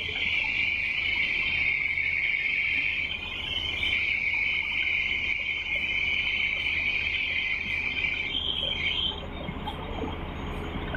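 Tata Hitachi Zaxis 650 excavator's diesel engine running with a low rumble as the bucket digs, under a loud, steady high-pitched buzz that rises slightly and cuts off about nine seconds in.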